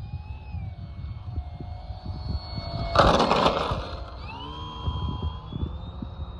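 Sorell Hiperbipe RC foam biplane's electric motor and propeller whining, the pitch wavering, with a loud rush about three seconds in as it passes close by. The whine then rises in pitch and holds steady as the plane climbs away, over a low rumble of wind on the microphone.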